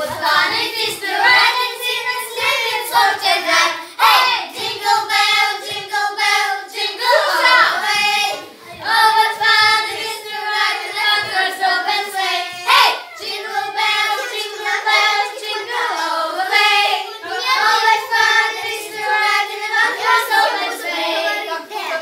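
A group of young girls singing a song together, in phrases with short breaks between them.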